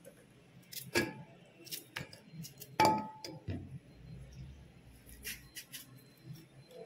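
Knife cutting raw plantain into chunks that drop into a steel bowl: a few separate sharp clicks and knocks. The loudest comes about three seconds in, with a short metallic ring from the bowl, and lighter ticks follow near the end.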